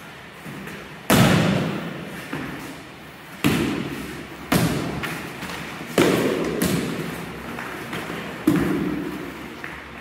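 Padded sparring swords striking shields and bodies: a series of about six sharp thuds, the first, about a second in, the loudest, each echoing briefly in the hall.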